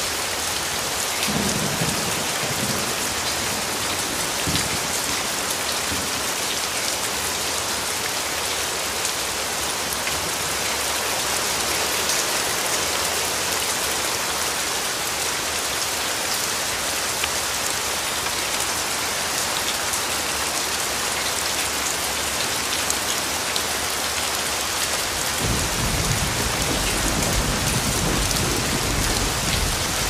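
Steady rain falling, an even hiss throughout. About twenty-five seconds in, a low rumble of thunder sets in beneath it and carries on.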